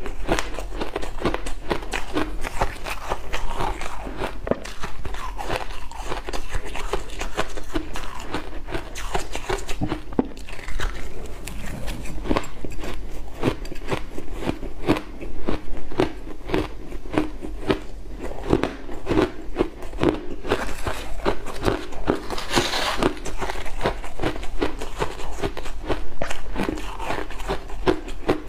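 Big mouthfuls of soft crushed ice being bitten and chewed, close-miked: a dense run of quick, crackling crunches that goes on without a break.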